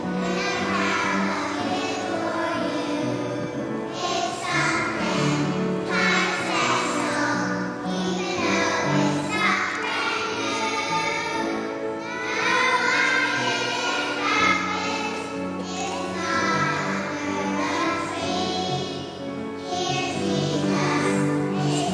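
A choir of young children singing a song together over instrumental accompaniment, with no pauses.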